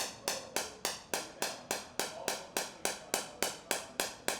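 Handheld pulsed treatment device tapping on the knee, clicking in a steady, even rhythm of about three and a half clicks a second as it maps sore spots.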